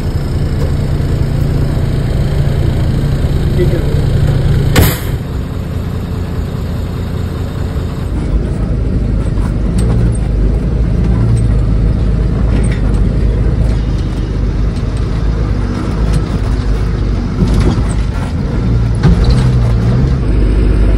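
Bus engine running with road rumble inside the cabin, growing heavier about eight seconds in, and one sharp knock about five seconds in.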